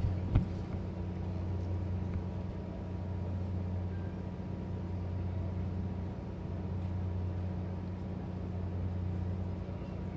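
Steady low hum of a moored fishing ship's engine machinery running, with a single knock just after the start.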